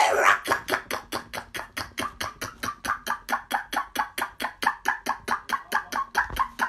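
A woman praying in tongues: a loud cry, then a fast, even stream of short repeated syllables, about six or seven a second.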